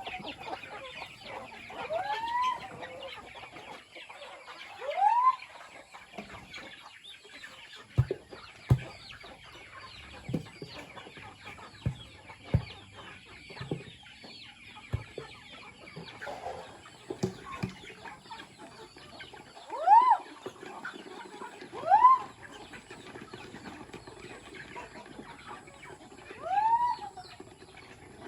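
A flock of chickens clucking and calling, with a busy chatter throughout and a few louder calls that rise and fall in pitch. Several sharp knocks come between about a third and two thirds of the way in.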